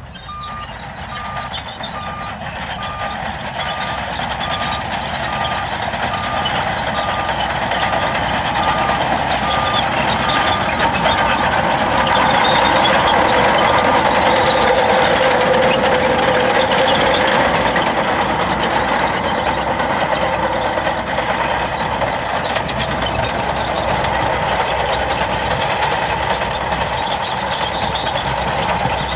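Heavy diesel dump truck reversing: its back-up alarm beeps steadily, a little under two beeps a second, and stops about halfway through. The engine grows louder and is loudest near the middle.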